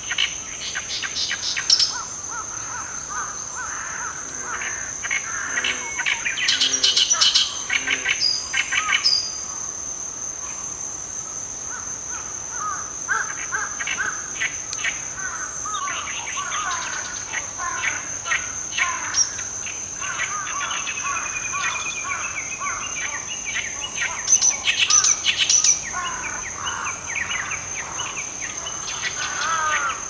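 Oriental reed warbler singing: bouts of rapid, harsh, chattering phrases with short pauses between them. A steady high-pitched insect trill runs underneath throughout.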